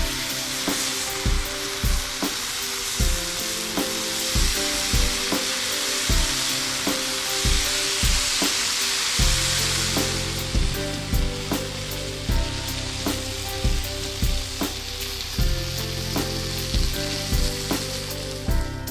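Background music with a steady beat, over food sizzling and frying in a pan. The sizzle is loudest in the first half and eases off later.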